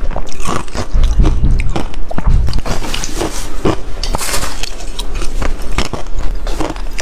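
Close, loud biting and crunching of soft refrozen shaved ice, many irregular crunches in quick succession as the ice is bitten and chewed.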